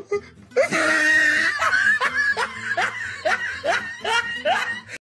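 High-pitched laughter: a long squealing laugh about half a second in, then a run of about eight short rising hoots, two to three a second, which cuts off suddenly at the end.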